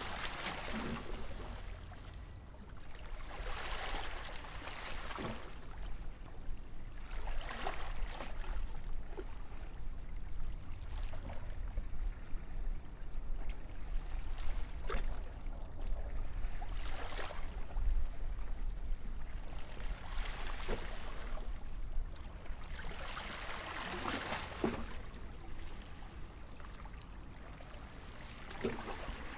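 Calm waves washing in gently, one soft swell of water about every three to four seconds over a steady low rumble.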